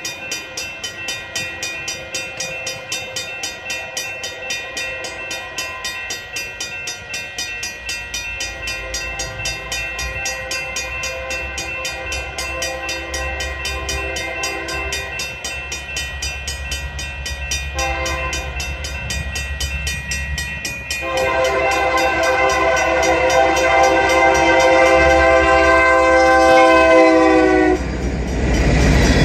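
A diesel freight locomotive's air horn sounds as the train approaches, several tones together. It grows louder and ends in a long loud blast that cuts off near the end, while the rumble of the locomotive and its cars builds and takes over. A steady rhythmic ringing of about two or three strokes a second runs in the background through the first half.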